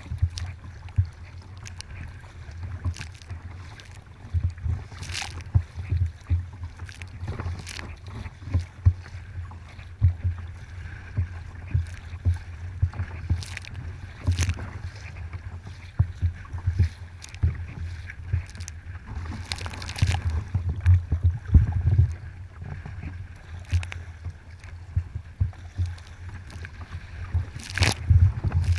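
Kayak on open water: paddle strokes splashing and water slapping against the hull every second or so, over a constant low rumble.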